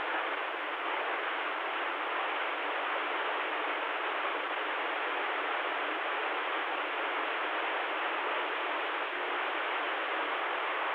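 CB radio receiver static: a steady hiss from the speaker with the squelch open and nobody transmitting on the channel.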